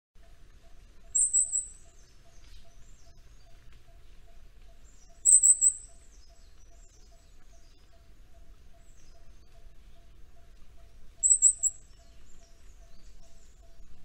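Vernal hanging parrot (Indian lorikeet) calling: three short, high-pitched 'zi-zi-zi' series of three or four rapid notes, about a second in, about five seconds in and about eleven seconds in.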